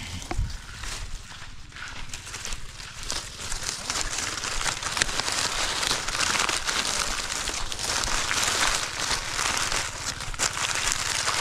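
Continuous rustling and crackling made of many small clicks, getting louder about four seconds in.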